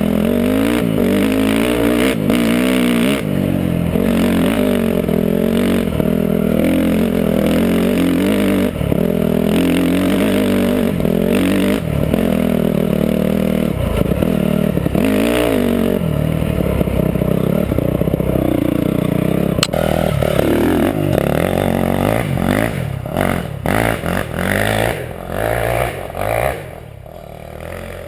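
Dirt bike engine revving up and down as it is ridden over a rough trail, with rattling and scraping from the bike and ground. After about twenty seconds the engine note becomes irregular, broken by separate knocks, and it drops in loudness near the end.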